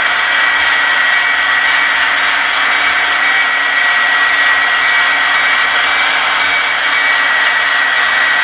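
HO scale model train running past, a steady high whine over an even hiss, the sound of the model's motor and wheels rolling on the track.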